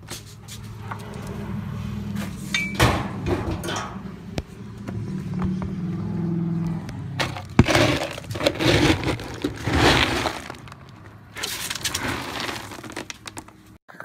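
A plastic scoop digging into dry dog kibble, the pellets rattling and pouring in several loud bursts in the second half. Before that comes a steady low hum with a few sharp noises.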